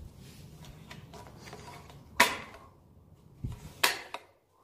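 A few sharp, separate knocks and clicks over a faint background, the loudest about two seconds in and a quick cluster near the end.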